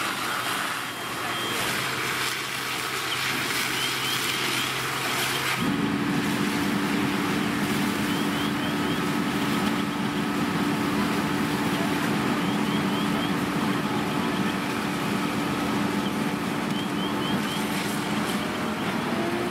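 Fire engine running under pump load, a steady engine hum under a rushing hiss of water from its deck gun. About five and a half seconds in, the hum jumps abruptly to a higher pitch and holds steady.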